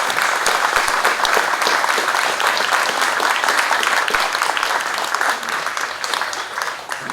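Outdoor crowd applauding, a dense steady clapping that fades away near the end.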